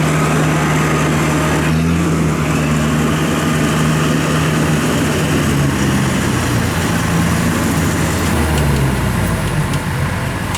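Kubota DC93 combine harvester's diesel engine running hard as the machine moves in through the mud to pull out a stuck tractor, its pitch shifting a couple of times with the load.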